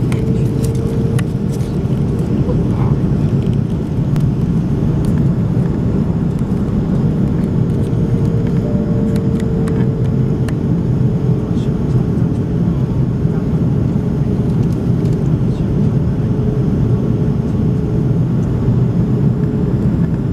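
Steady cabin noise inside an Airbus A330 airliner during descent: the even rumble of the jet engines and the airflow, with a faint steady tone above it.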